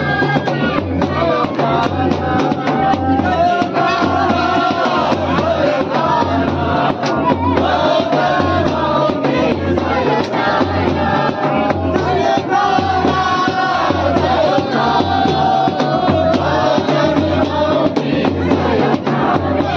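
Lahauli folk band music: a high pipe playing a wavering melody over a large double-headed drum beaten in a steady rhythm.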